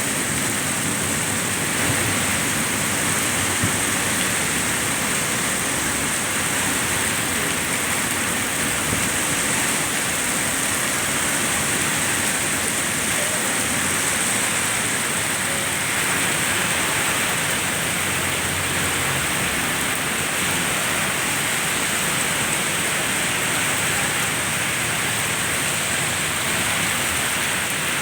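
Heavy rain pouring down steadily, a dense, even hiss of the downpour.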